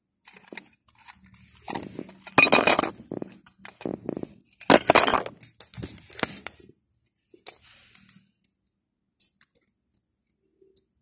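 Handling noise close to the phone's microphone: hands and small plastic toys rustling, rubbing and knocking. It comes in two loud bursts about two and a half and five seconds in, with smaller rustles until about eight seconds, then only a few faint clicks.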